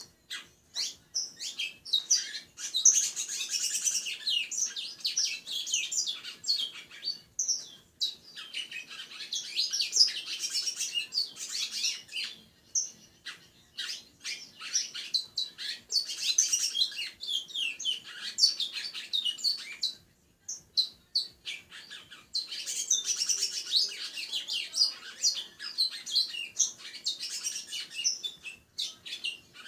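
Caged songbird, the kind Colombian keepers call a congo, singing: several bursts of fast, high song a few seconds long, with scattered single chirps between them.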